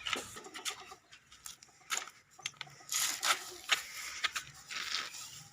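Irregular knocks, clatter and scraping as the droppings tray is pulled out of a birdcage.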